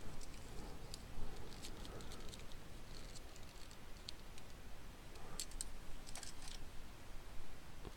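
Faint, irregular clicking of computer keys, a few single clicks and small clusters of them, over a low steady room hum.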